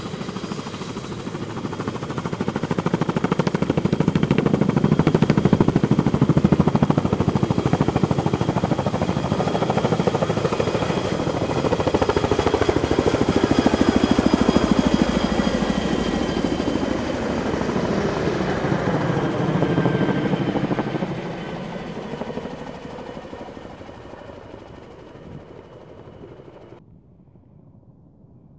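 Boeing Vertol CH-46 Sea Knight tandem-rotor helicopter passing close at low height: a dense rotor beat under a high steady turbine whine from its twin turboshaft engines. The sound swells, stays loud, then fades as the helicopter flies away, and cuts off abruptly near the end.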